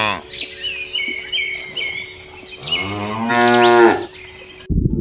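Cow mooing: the end of one long moo at the start and a second full moo about halfway through, with small bird chirps in between. A low rumbling noise cuts in near the end.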